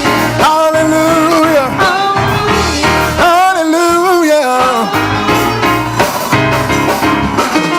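Music: a sung melody with a wavering, gliding voice over a band with bass and drums.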